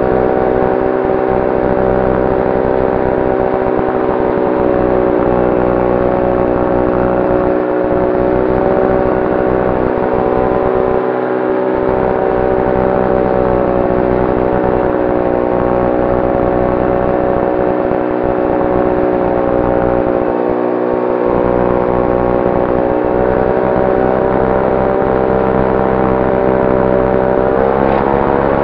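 The E-gull's electric motor and propeller running steadily in powered cruise flight, a hum of several steady tones with wind rushing past the cockpit. The pitch rises slightly near the end.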